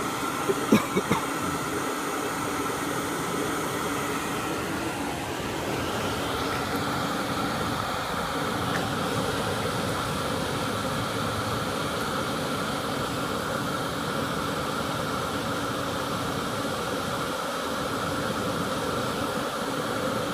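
Hair dryer running steadily, blowing air through a pipe into a small homemade coffee-can furnace of burning wood coals: a constant rushing hum with a few held tones. A few short sharp clicks about a second in.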